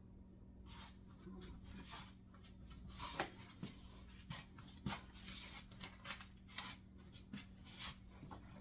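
Faint rustles and light knocks of papers and small objects handled on a wooden table, as a person moves about, over a steady low hum.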